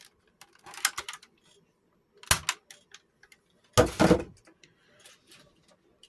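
Plastic clicks and knocks from handling a Nerf revolver-style blaster: scattered light ticks, a sharp clack a little over two seconds in and a heavier double knock about four seconds in, the loudest of them.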